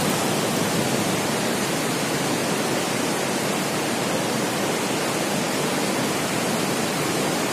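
Steady rush of a fast-flowing mountain river: an even, unbroken hiss of running water.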